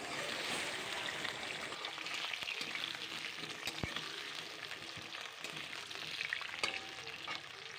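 Cubed potatoes sizzling as they fry in hot oil, a steady crackling hiss with a few light clicks.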